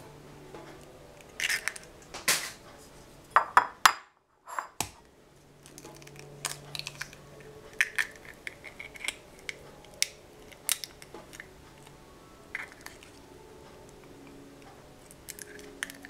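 Scattered clinks and taps of a utensil and eggshell against a bowl while eggs are separated by hand. The sound cuts out completely for under a second about four seconds in.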